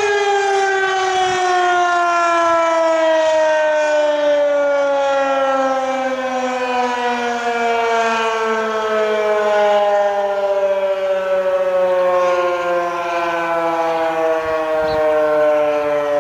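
Federal Signal Fedelcode Model 20 dual-rotor civil defense siren winding down, a loud, steady tone with its pitch falling slowly and smoothly.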